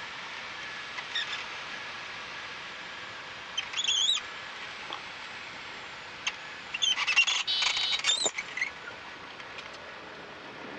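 Main tyres of a Piper Warrior chirping in short high squeaks as the aircraft touches down and rolls out on the runway, over a steady cockpit hiss. A quick run of squeaks comes about two-thirds of the way through.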